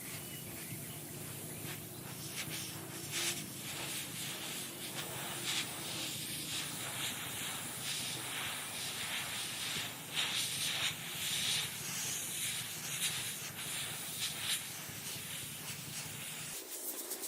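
Repeated hissing bursts of varying length over a steady low motor hum; the hum cuts off near the end.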